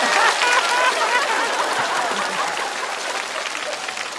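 Studio audience laughing and applauding after a punchline, a few voices standing out in the first second, the noise fading away gradually.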